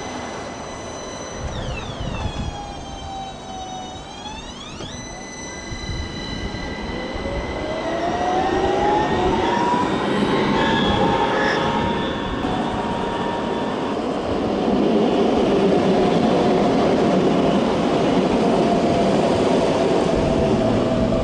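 Electric trams running past: an Ansaldo Breda M32 low-floor tram pulls away with its electric drive whining, the whine sweeping down and back up in pitch and then rising as it gathers speed. Over the second half a second, older articulated tram runs past louder, with a steady whine over the rumble of its wheels on the rails.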